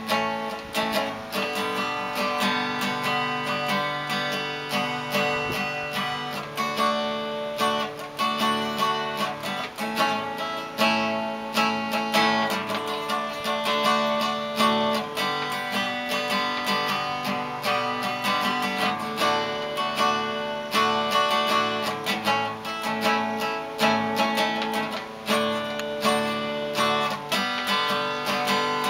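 Acoustic guitar played solo: a continuous run of quick strokes across the strings with chords and notes ringing on.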